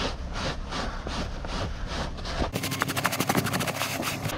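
A rag rubbing over a dirty car floor in repeated wiping strokes, about three a second. In the last two seconds the strokes come quicker over a faint steady hum.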